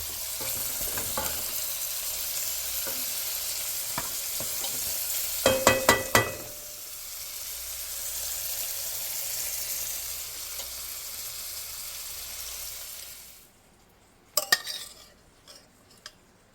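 Food sizzling in a frying pan, with a utensil clanking against the pan a few times about halfway through. The sizzling cuts off suddenly near the end, followed by a few light clinks of metal.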